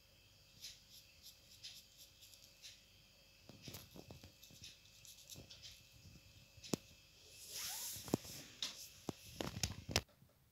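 Faint scratching and tapping of a fine paintbrush working acrylic paint on paper, with scattered small clicks, a brief hiss a little before the 8-second mark, and the sharpest clicks near the end.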